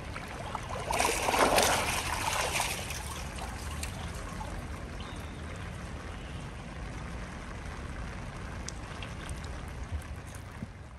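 Pool water splashing loudly for a second or two, starting about a second in, then steady trickling and lapping water.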